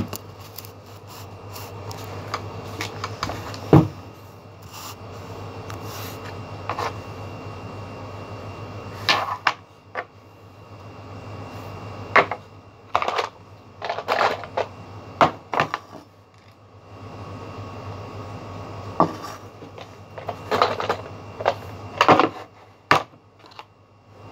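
Small objects being handled and set down on a wooden tabletop: scattered clicks and knocks, the loudest about four seconds in, with clusters of quicker taps and rustles later, over a steady low hum.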